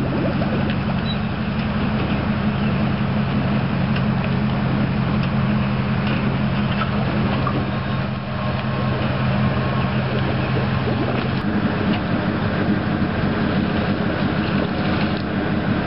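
An engine idling: a steady low hum with a constant tone. One of its low tones cuts out about two-thirds of the way through, and the rest of the hum carries on.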